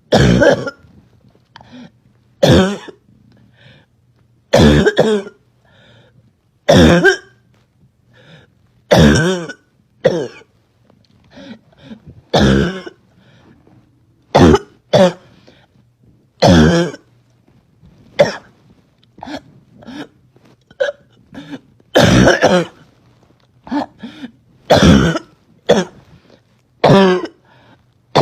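A girl's barking cough: a loud cough about every two seconds, with quieter, smaller coughs and catches of breath between them.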